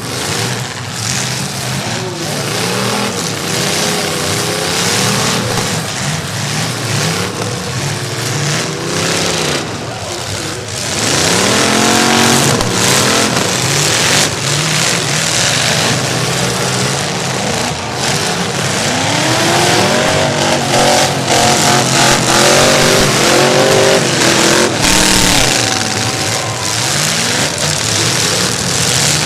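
Demolition derby cars' engines revving hard and falling back, over and over, several at once, getting louder about a third of the way in.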